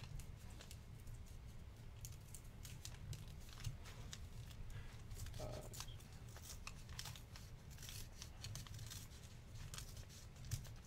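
Faint crinkling and tearing of a baseball card pack's wrapper as it is opened by hand: an irregular scatter of small sharp crackles.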